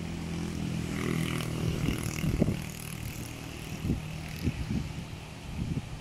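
Small waves washing up on a sandy beach, with wind buffeting the microphone in several low thumps. A low, steady motor hum, such as a passing boat or aircraft, runs through the first half and fades out about halfway.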